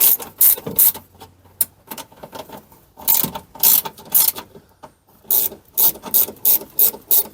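Hand ratchet wrench worked in quick back-and-forth strokes, each stroke a short burst of clicking, in runs of several strokes with brief pauses, as bolts on a window regulator are run in.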